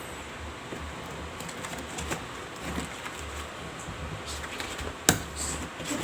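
Quiet handling of electrical cable and hand tools, with faint scattered ticks and rustles and one sharp snap about five seconds in.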